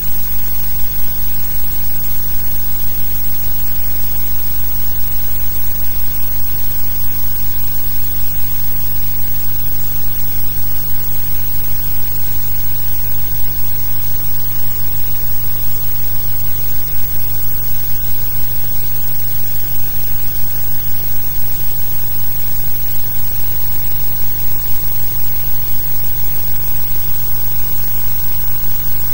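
Steady low hum and hiss from a blank soundtrack, with no recorded program sound; it runs loud and unchanged throughout.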